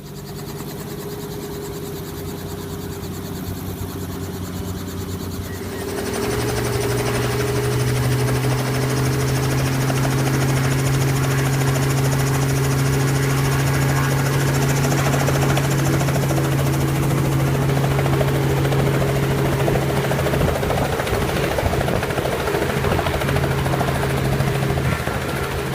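Helicopter running steadily, its engine and rotor giving a constant hum with a broad rushing noise; it grows louder about six seconds in and then holds.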